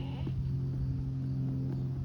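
RealCare Baby infant simulator fussing through its built-in speaker, a steady low droning whimper that is its signal it still needs burping, with a few faint clicks.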